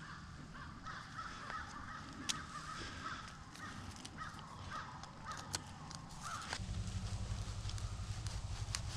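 A run of rapid, repeated animal calls in the background that stops about six and a half seconds in, with small clicks and rustles from handling a paper deer tag. Near the end a steady low rumble sets in.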